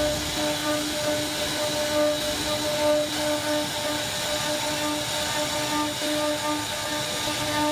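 CNC router spindle carving a wooden panel, a steady high hiss of the cutter in the wood, with a low hum that comes and goes about once a second.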